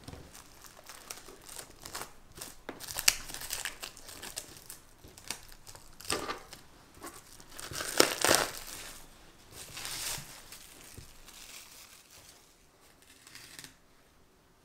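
Plastic cling film crinkling and rustling in irregular bursts as it is pulled off the base of a cake frame, loudest about three and eight seconds in.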